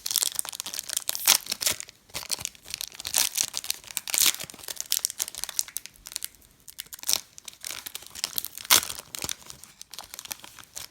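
Plastic packaging crinkling and crackling in irregular bursts as trading cards and their wrappers and sleeves are handled.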